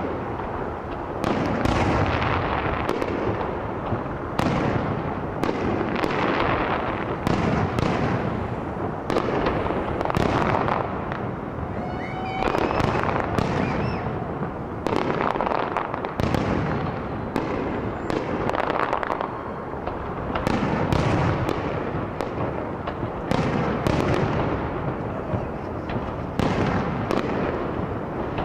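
Fireworks display: a dense, continuous barrage of shell bursts and crackling, with a few rising whistles about twelve seconds in.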